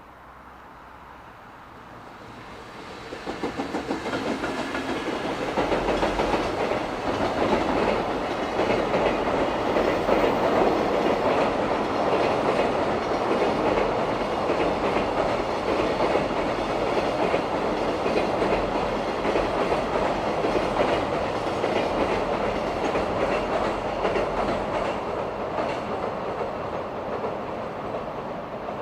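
Freight train passing: wheels rolling on the rails in a long, steady rumble that builds over the first few seconds, holds for about twenty seconds and eases slightly near the end.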